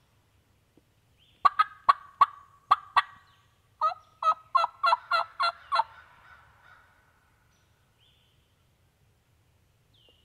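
Wild turkey gobbler gobbling twice in quick succession, each gobble a fast rattle of notes, the first about a second and a half in and the second about four seconds in.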